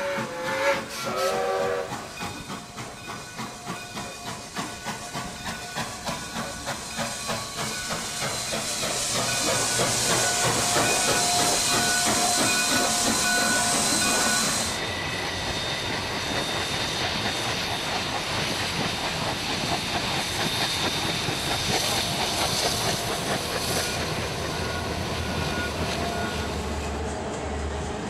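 Royal Hudson 4-6-4 steam locomotive No. 2860 sounding its steam whistle, then working toward the microphone with exhaust beats about twice a second. A loud hiss of steam builds as it comes close. About halfway through the sound cuts to a CP Rail diesel-hauled freight train passing, with a steady rumble of engines and wheels.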